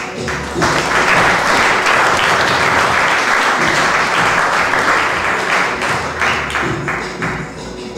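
Audience applauding over the act's background music. The clapping swells up about half a second in and dies down near the end.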